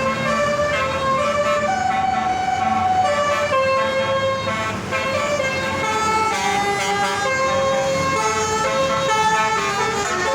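Bus basuri horn, an Indonesian multi-tone musical horn, playing a tune: a continuous run of held horn notes stepping up and down in pitch.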